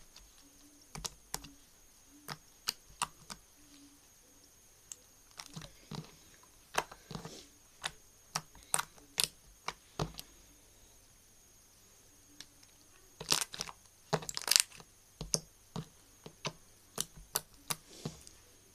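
Slime being squeezed and stretched by hand, making irregular sharp clicks and pops, with a denser run of louder pops about two-thirds of the way through.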